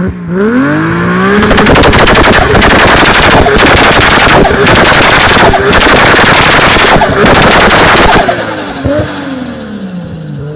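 Tuned turbocharged car engine revving up, then about six seconds of loud, rapid machine-gun-like crackling and chattering from the turbo and exhaust in several runs with short breaks, before the revs fall away.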